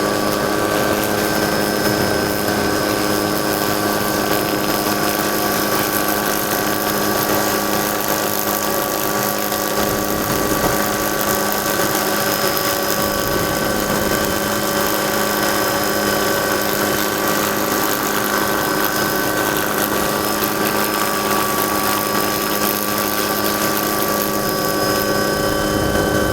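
Helicopter running steadily in flight: a constant engine drone with steady high-pitched whining tones over it.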